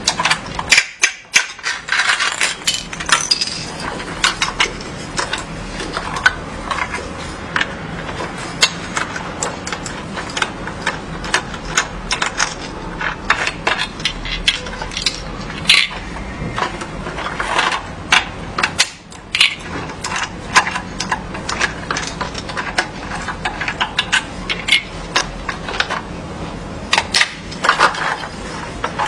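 Hard plastic toy parts clicking, ticking and knocking irregularly as they are handled, over a steady low background hum.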